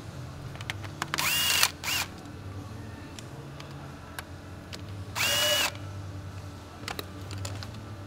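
Cordless power tool on a socket extension spinning triple-square bolts out of the shift tower, in two short runs about four seconds apart; the motor's whine rises, holds and falls off each time, the first run followed by a brief blip. A few light clicks of the tool on metal near the end.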